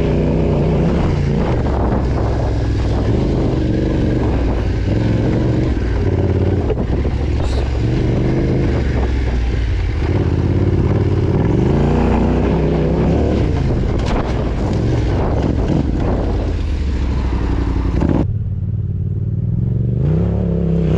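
Yamaha Ténéré 700 rally bike's parallel-twin engine being ridden off-road, revving up and dropping back again and again as the throttle is worked. Near the end the sound changes abruptly, the hiss above the engine note cutting out.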